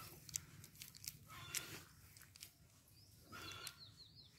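Faint birds calling, with a quick run of small chirps near the end, over soft ticks and rustles of a fishing net being picked through by hand on grass.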